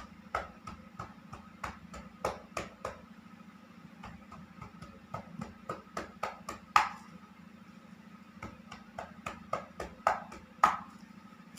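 Cupped hands clapping on a patient's back in chest physiotherapy percussion, done to loosen phlegm in the upper chest. The pats come quickly in irregular runs of a few seconds, with a steady low hum underneath.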